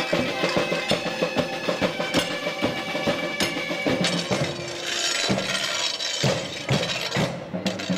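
Drums beating a busy rhythm under steady held tones; about halfway through the drumming thins to a few separate strikes.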